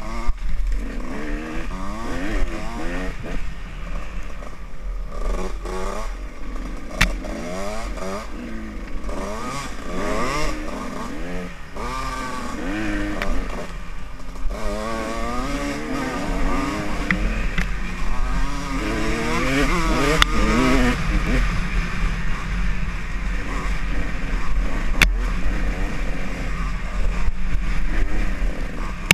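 Off-road dirt bike engine revving up and down over and over as the throttle is opened and closed, with a deep rumble underneath and a couple of sharp knocks.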